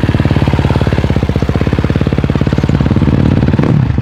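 KTM motocross bike's single-cylinder engine idling with a rapid, even beat, given a short rev near the end.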